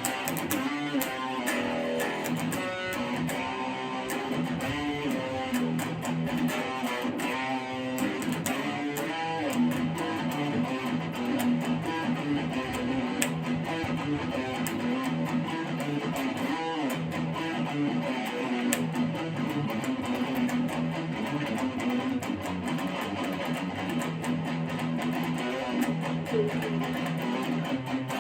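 Ibanez Gio electric guitar being played: a continuous passage of notes and chords with no pauses.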